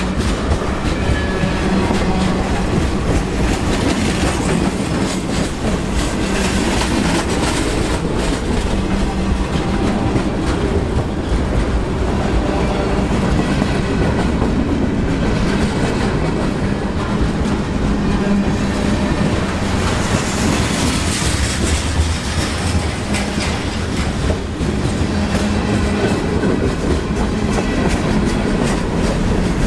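Freight train cars (tank cars, an autorack, covered hoppers) rolling past at close range: steel wheels clacking over the rails with a steady rumble and rattle.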